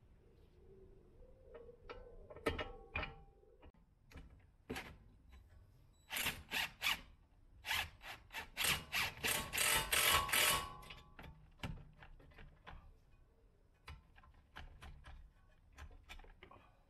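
Metallic clicks and clatter of hand tools at work, with a dense run of quick clicks in the middle.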